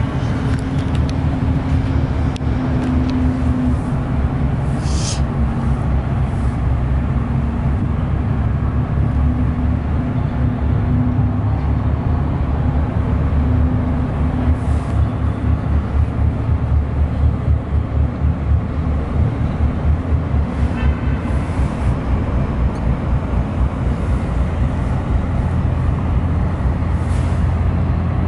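Low, steady diesel engine drone of boats passing close by, a ferry and then an inland cargo barge, with a throb that pulses more strongly about halfway through. A few faint brief clicks sound over it.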